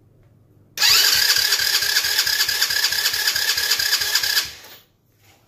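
Electric starter cranking a 110cc Chinese ATV's single-cylinder four-stroke engine for a compression test, throttle wide open and the gauge in the spark plug hole so it does not fire. The starter's whine rises as it spins up and then holds steady over a quick, even chugging of compression strokes, starting about a second in and dying away near the end.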